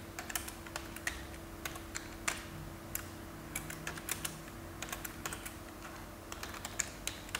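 Computer keyboard keys clicking as a command is typed, irregular keystrokes in quick runs with short pauses. A faint steady hum lies underneath.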